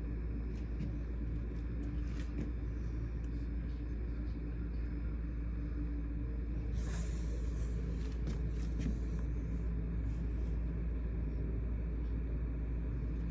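Steady low rumble and hum of a car driving, with a brief hiss about seven seconds in.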